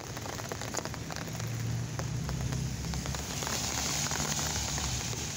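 Steady rain falling on wet pavement, a continuous hiss dotted with small drop ticks, over a low rumble.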